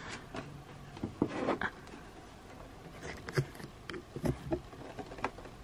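Scattered light clicks and taps of plastic being handled: the pink plastic grid grille of a nail dust collector being picked up and turned over, with a brief rustle.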